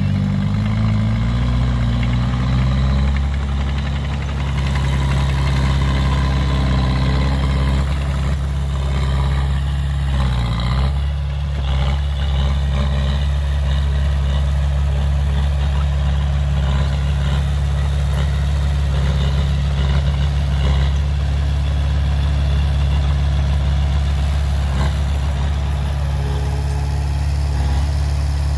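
Heavy diesel engine of earth-moving machinery running steadily, its pitch dipping and recovering in the first few seconds and again briefly about ten seconds in.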